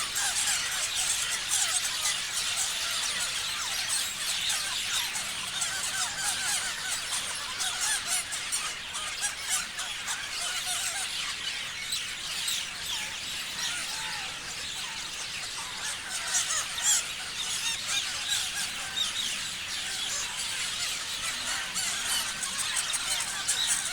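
A flock of parrots chirping and squealing, many short, high, overlapping calls in a steady, continuous chatter.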